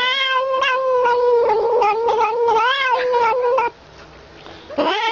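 A cat giving a long, wavering, wailing cry, about three and a half seconds, while drinking milk from a bottle, with a second cry starting near the end.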